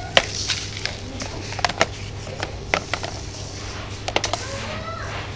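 Plastic sand toys (scoops, moulds, buckets) clicking and knocking against each other, a dozen or so sharp, irregular clicks, with a steady low hum underneath.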